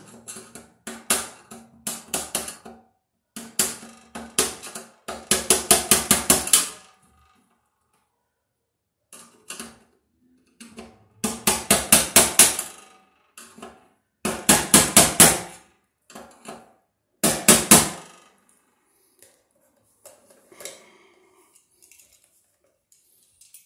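Metal-on-metal tapping as the locknut of a Romex cable connector on a steel breaker panel box is driven tight with a screwdriver: quick runs of sharp taps, about six a second, with short pauses between. The tapping dies away to a few faint knocks in the last few seconds.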